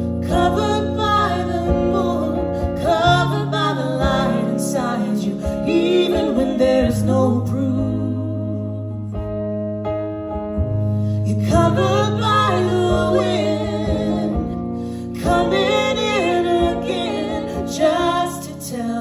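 Live band music: women's voices singing over a hollow-body electric guitar, with long held bass notes underneath. The singing pauses for a couple of seconds about halfway through, then comes back.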